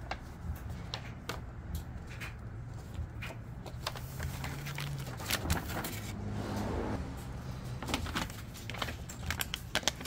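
Handling noises: scattered light clicks and knocks as small pieces are handled and pressed onto the scoops, over a faint steady hum.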